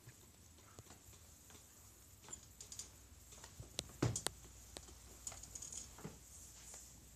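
Scattered soft clicks and taps of a handheld camera being handled and carried, with the loudest knock about four seconds in, over a faint steady hum.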